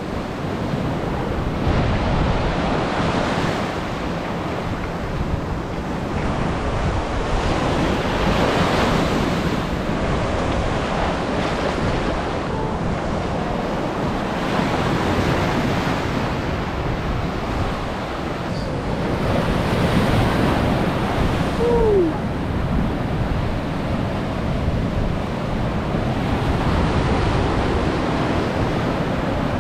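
Pacific Ocean surf breaking and washing up the beach, swelling and easing every few seconds, with wind rumbling on the microphone.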